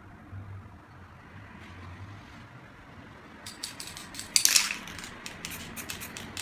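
Aerosol spray paint can giving a run of short hissing bursts through a stencil, starting about three and a half seconds in, the loudest lasting about half a second.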